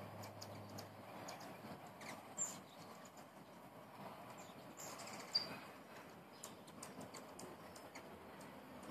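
Hummingbirds at feeders giving scattered, faint, high squeaky chips and chatters, a few of them quick falling notes.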